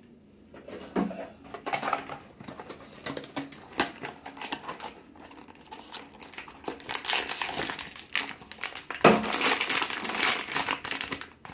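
A cardboard blind box being opened by hand, then its foil inner pouch handled: irregular rustling and crinkling with scattered clicks, getting louder and denser over the last few seconds.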